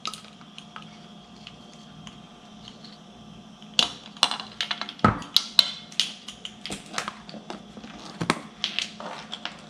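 Light clicks and taps of a measuring spoon and spice containers against a mixing bowl as baking powder and seasonings are added to the flour. They start about four seconds in, over a faint steady hum.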